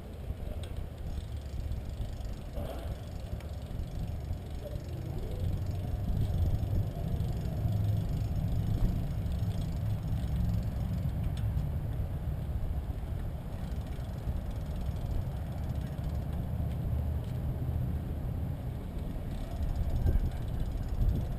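Wind rumbling steadily on the microphone of a moving bicycle, with the noise of riding along a street.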